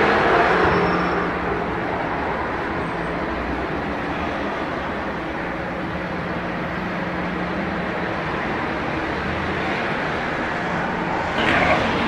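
Steady low hum and rumble of running machinery, with a few short knocks near the end.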